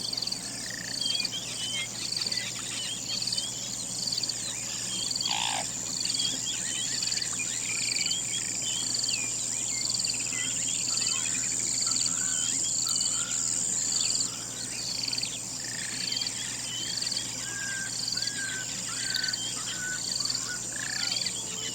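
Outdoor wildlife ambience: a steady high insect drone, a high pulsing call about once a second, and many scattered bird chirps. One call glides downward about five seconds in.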